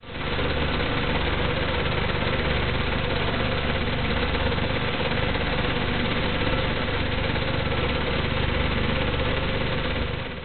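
Walk-behind sod cutter's small gasoline engine running steadily as it cuts turf.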